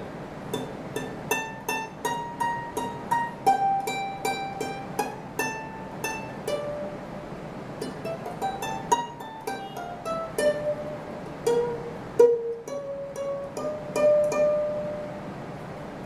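aNueNue US200 Moon Bird soprano ukulele with a Moon Spruce top and black fluorocarbon strings, plucked as a single-note melody high up the neck. The notes ring on and include a few slides. They sustain well even in the high register.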